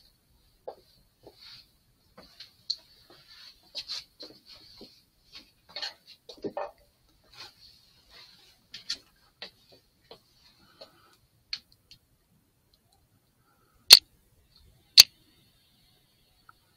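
Faint, irregular small ticks and clicks over a thin high hiss, then two sharp, loud clicks about a second apart near the end.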